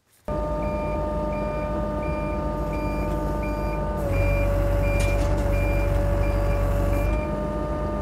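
Skid-steer loader's engine running, with its backup alarm beeping steadily about one and a half times a second. About four seconds in, the engine takes on load as the grapple lifts the log, and it eases back about seven seconds in, when the beeping stops.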